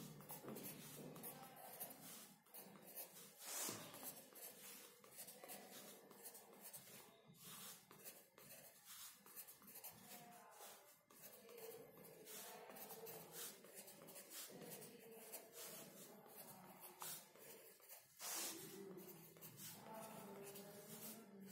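Faint scratching of a pencil on paper, in short irregular strokes as lines and small numbers are drawn.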